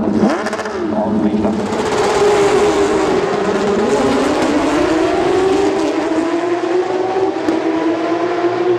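Porsche 911 GT3 Cup race cars with flat-six engines passing close by, each engine note rising then falling as it goes past. From about two seconds in, the field's engine notes climb together in pitch as the cars accelerate away down the straight.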